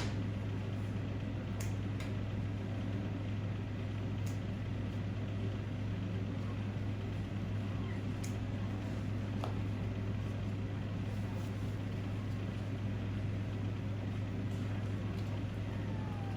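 Steady low mechanical hum with an even noise over it, holding level throughout, with a few faint ticks.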